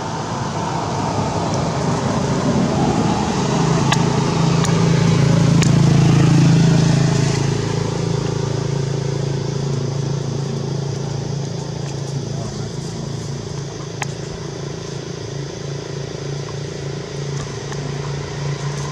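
A motor engine running with a steady low hum, swelling over the first several seconds and then settling to a steady level, with a few sharp clicks.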